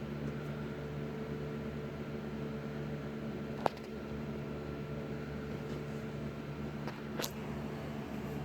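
A steady mechanical hum from a fan or motor, with two short sharp clicks about four seconds apart.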